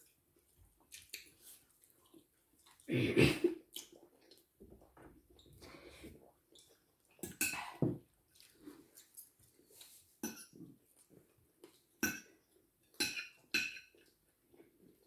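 Cutlery clinking and scraping on plates during a meal: scattered short knocks, with louder clatters about three seconds in and again about halfway through.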